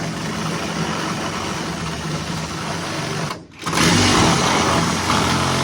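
Power cutting tool running steadily as it cuts out rusted sheet metal from a pickup cab's rockers. It drops out briefly about three and a half seconds in, then comes back louder.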